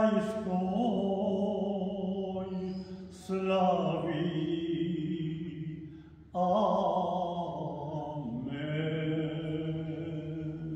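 A lone elderly man's voice chanting a Croatian folk blessing in three long, slow, sustained phrases, fading out near the end.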